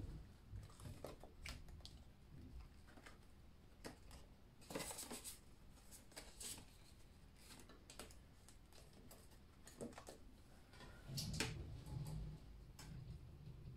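Faint rustling and light clicks of paper prop bills being handled and tucked into a planner's envelope, with louder rustles about five seconds in and again near the end.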